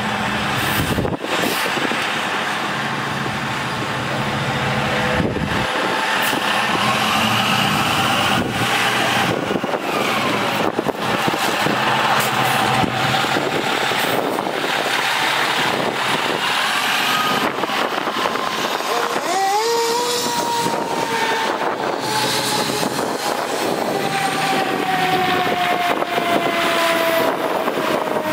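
2007 E-One Cyclone II fire ladder truck pulling out on an emergency response, engine running. About two-thirds of the way through a siren tone rises steeply, then slowly falls in pitch as the truck drives off.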